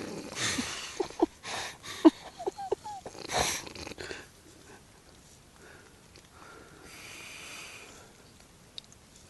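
Snoring in sleep: a run of snorts with short squeaky nasal whistles, then after a quieter pause a longer wheezing breath with a whistle about seven seconds in.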